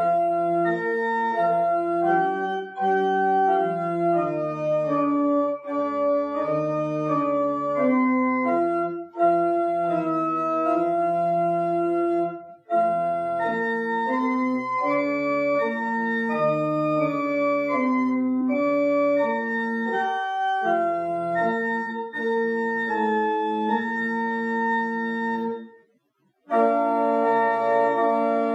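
Organ music: sustained chords changing in steady succession. There is a brief break about twelve seconds in and a half-second pause near the end before the playing resumes.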